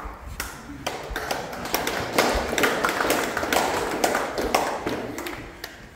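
Irregular light taps and knocks from a barefoot kapa haka group shifting its feet and hands on a hard hall floor, in an echoing room.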